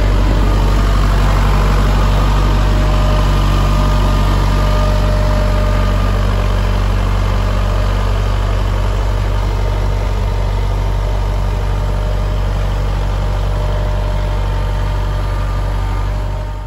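Kubota tractor's diesel engine running steadily at close range as the tractor creeps over a fabric-socked agi drain pipe to flatten it.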